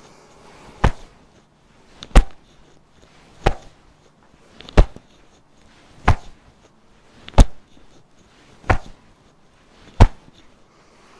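Open hands slapping the top of the shoulders in turn as the arms swing across the body, a self-massage by striking. There is a sharp, loud slap about every 1.3 seconds, eight in all, the first about a second in.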